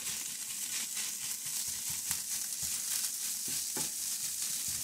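Rice and scrambled egg sizzling in a hot skillet while a spatula stirs and breaks it up, with frequent irregular soft knocks and scrapes of the spatula against the pan.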